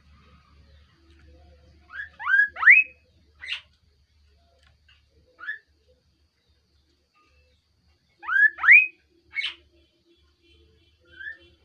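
Kaso-kaso bird calling: two loud phrases about six seconds apart, each made of two quick rising whistled notes followed by a short higher note, with single short notes in between.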